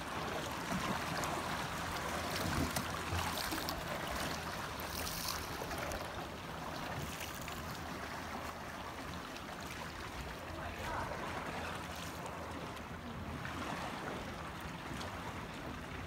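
Water lapping and splashing around a kayak as it is paddled: a steady wash with scattered small splashes.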